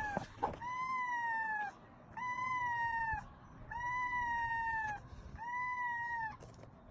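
A kitten meowing four times in a row, each a long, level, high-pitched cry of about a second, with short pauses between.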